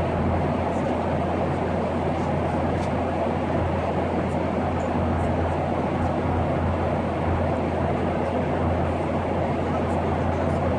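Steady drone of engine and air noise inside the cabin of a Boeing 737 airliner, with a strong low hum and an even rushing hiss at a constant level.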